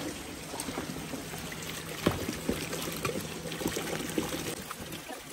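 Shallow water trickling in a drained-down pond, with scattered small splashes and one sharper splash about two seconds in.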